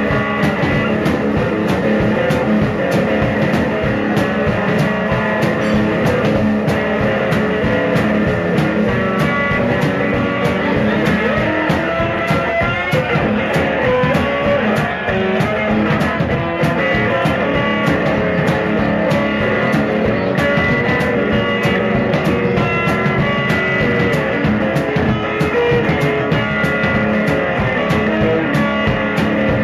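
Live electric blues from a duo: an electric guitar played over a drum kit keeping a steady beat.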